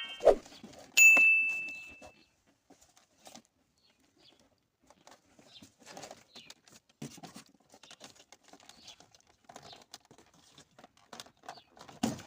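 A single electronic chime ding about a second in. Then faint scattered clicks and rustling as door-panel trim and connectors are handled, with a sharper knock near the end.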